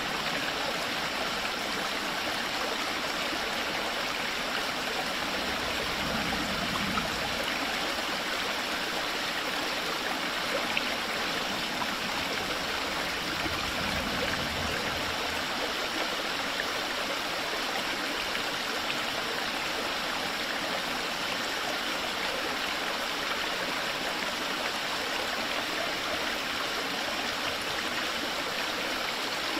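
Water of a stream flowing steadily, an even rushing and gurgling.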